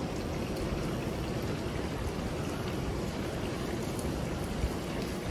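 Fish frying in a pan on a propane camp stove: a steady sizzle over the rush of the burner.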